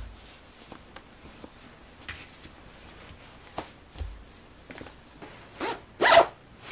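Soft rustling of cotton socks being pulled on, then near the end the zipper of a padded puffer jacket is drawn up quickly: a short rasp followed by a louder zip, the loudest sound here.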